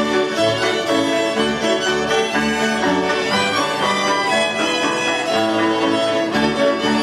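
School cimbalom band playing a Moravian folk tune: several violins led by the lead fiddler, over cimbalom and double bass, with bass notes pulsing on the beat.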